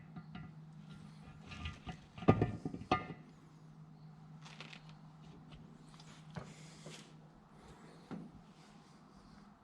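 Engine parts and tools being handled on a workbench: a few sharp knocks and clatters, loudest about two to three seconds in, then a few fainter clicks.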